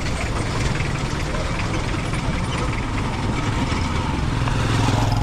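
Road traffic, with a motor vehicle engine running close by as a steady low drone over the general din of the street.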